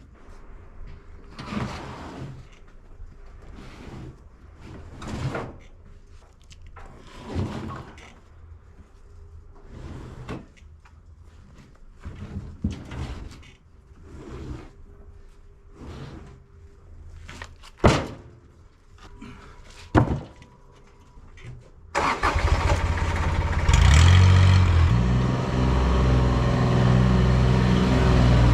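A string of separate knocks, clunks and scrapes, like heavy pieces being handled. About 22 s in, an engine starts and keeps running loud with a low, uneven drone.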